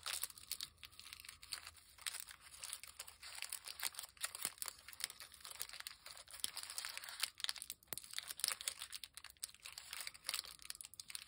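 Stacked tracing paper and deli paper being crinkled and scrunched by hand into a flower: an irregular run of dry paper crackles.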